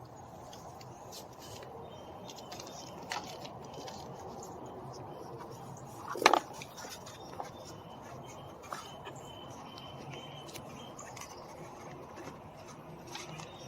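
Scattered small clicks and taps of hand work on the plastic window-switch assembly and its screws, with one sharper knock about six seconds in, over a low steady background.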